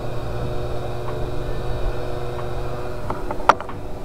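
Handheld hot-air gun running with a steady whir, blowing hot air onto an Apple Watch charging puck to soften the glue holding its cover. A single sharp click comes about three and a half seconds in.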